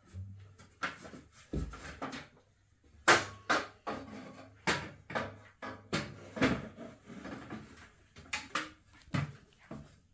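Aluminium step ladder clanking and knocking as it is moved and climbed: an irregular series of sharp knocks, the loudest about three seconds in.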